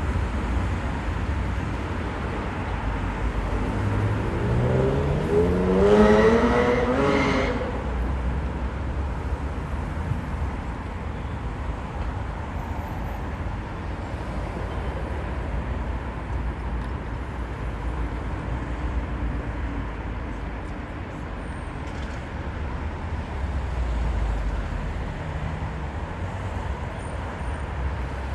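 City street traffic ambience: a steady low rumble of road traffic. About four seconds in, one vehicle's engine climbs in pitch as it accelerates past, loudest around six seconds in, before the rumble settles back.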